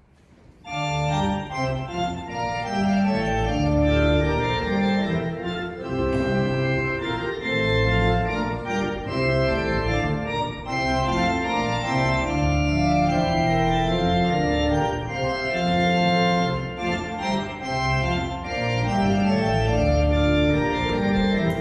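Organ music begins about a second in: sustained chords moving over low bass notes.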